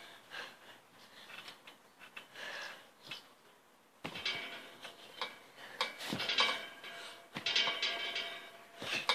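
Garden trampoline springs clinking and creaking with each bounce, in uneven bursts with a lull about halfway through.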